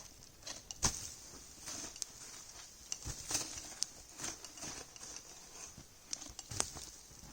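Snow crunching in a string of irregular, uneven steps or scrapes, several a few seconds apart.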